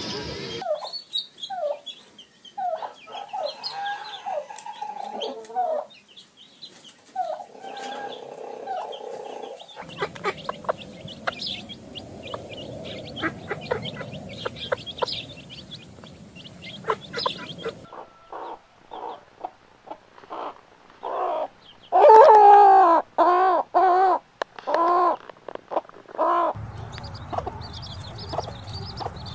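Hens clucking and chicks peeping, with a loud run of repeated hen calls a little past the middle.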